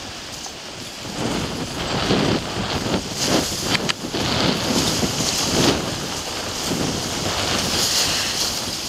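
Packed river ice grinding and crackling against the steel hull of a lake freighter as it pushes through. The noise swells and fades unevenly, with a couple of sharp cracks about four seconds in, and wind buffets the microphone.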